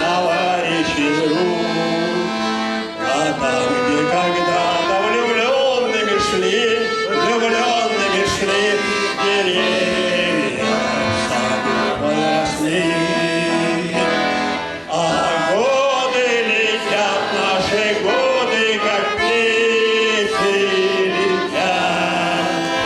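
Music playing: a wavering melody over sustained chords, steady and continuous.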